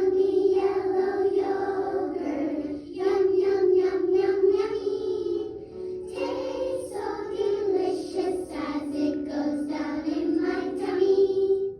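A group of children singing a short phonics song with instrumental backing, in several phrases with brief pauses between them.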